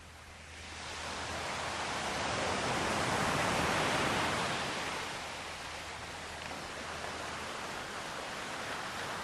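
Ocean waves washing on a shore: a wave swells in over the first few seconds and then eases off into a steady wash.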